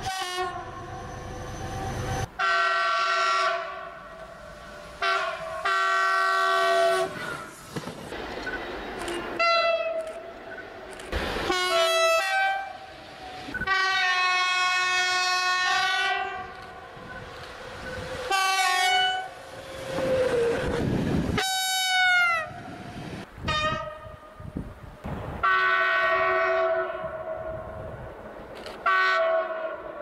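Horns of several different trains, diesel locomotives and electric multiple units among them, sounding in a string of short and long blasts. Many are multi-note chords. One blast about two-thirds of the way in falls in pitch as its train passes. Rail running noise sits beneath the blasts.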